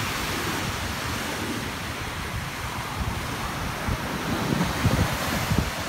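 Rough sea surf breaking steadily on a shingle beach, with wind buffeting the microphone in low gusts that grow stronger in the second half.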